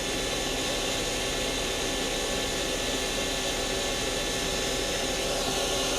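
Power-driven live tool spindle on a Star SV32J CNC Swiss lathe's gang slide, spinning steadily at about 3,500 RPM with no cutting: an even whine and hiss with several fixed tones.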